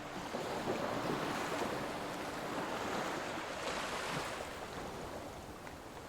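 Ocean waves washing in steadily, with one wave surging up and breaking about four seconds in.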